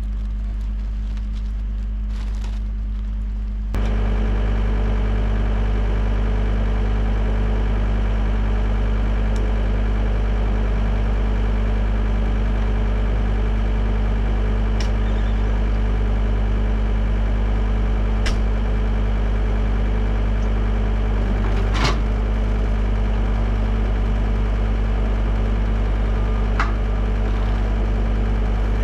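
John Deere 326D skid steer's diesel engine idling steadily, fainter at first and close and louder from about four seconds in. A few light clicks and knocks come over it as a person climbs over the loader arm into the cab, the loudest about two-thirds of the way through.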